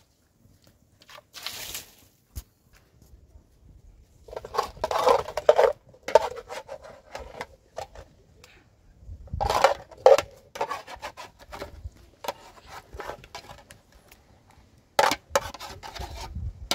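Metal ladle scraping and clinking against a steel cooking pot as thick tomato meat sauce is stirred and scooped out, in several short clusters of scrapes and knocks.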